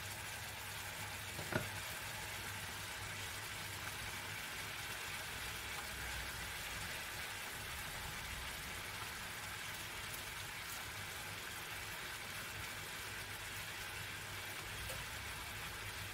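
Onion, parsnip and mushrooms frying in oil in a pan, a steady sizzle. A single sharp click about a second and a half in.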